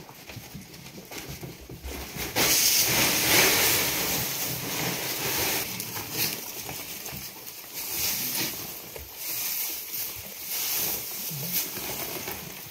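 Hot cooking pan sizzling: a loud sizzle starts suddenly about two seconds in and carries on, rising and falling.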